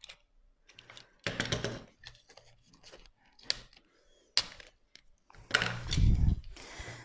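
Self-adhesive vinyl foil being cut with a snap-off craft knife and handled at the corner of a wooden stool: scattered light clicks and short scraping rustles. A louder knock with rustling comes about five and a half seconds in.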